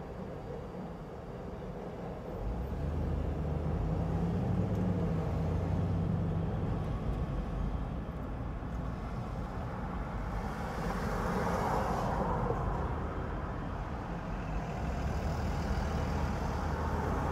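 City traffic and road noise heard from a microphone on a car's roof: a steady low hum that grows louder about two seconds in as the car pulls away from a stop, with tyre and wind rush and a louder swell of hiss midway.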